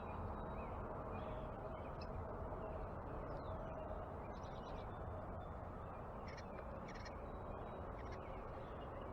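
Backyard birds giving short, scattered chirps and calls over a steady low background rush.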